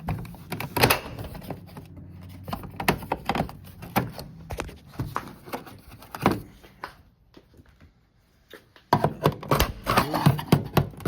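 Chrome upper door trim being pulled off a 1973–79 Ford truck door: a string of sharp clicks and snaps as the trim's clips let go. The clicks pause for a couple of seconds after about seven seconds, then a fast run of clicks follows near the end.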